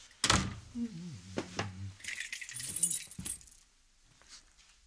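A door shuts with a sharp bang, then a bunch of keys jangles for about a second. Short wordless sounds from a man's voice come in between.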